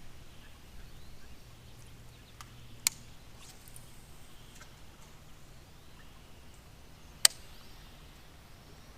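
Two sharp clicks, about four seconds apart, the second louder, over faint quiet background with a low steady hum.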